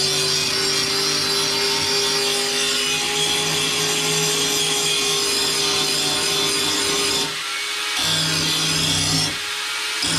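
Handheld angle grinder sharpening the edge of a steel lawn tractor mower blade: a steady motor whine with the grinding hiss of the disc on the metal, which eases briefly twice near the end.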